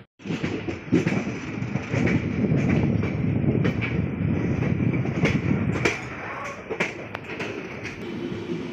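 The Chalukya Express passenger train running, heard from an open coach doorway: a steady wheel-and-track rumble with irregular sharp clacks as the wheels cross rail joints. The sound cuts in after a brief dropout at the very start.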